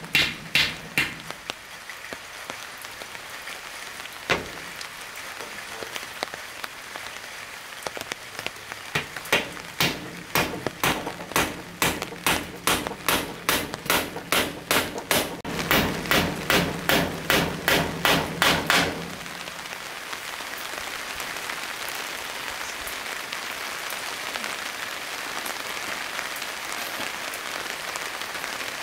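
Hammer blows on wood, a run of rhythmic strikes about two a second that get louder and then stop abruptly about nineteen seconds in. A steady, even hiss follows for the rest of the time.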